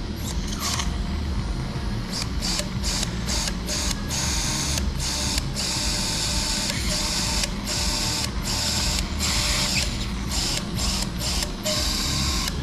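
A surgical power drill whirring as it bores into the talus for a 2 mm positional screw. The whir stops and restarts many times in brief breaks.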